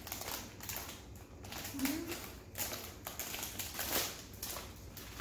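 Crinkly plastic snack bag of Ritz Crisp & Thins rustling and crackling as it is pulled at to open it, in uneven bursts.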